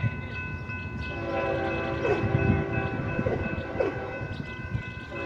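Diesel locomotive horn sounding one long blast as a BNSF freight train approaches a grade crossing. The blast starts about a second in and stops just before the end, over the steady ringing of the crossing-signal bell and a low rumble from the train.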